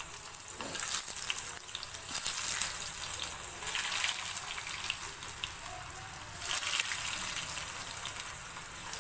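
Breadcrumb-coated carrot sticks deep-frying in hot oil: a steady bubbling sizzle full of small crackles, a little louder from about six and a half seconds in.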